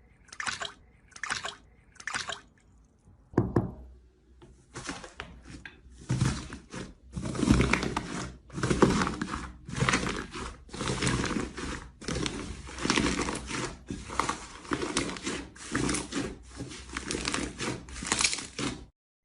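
Slime being squished and pressed by hand: a run of wet squelches, a few short ones first, then longer ones about once a second, cut off abruptly near the end.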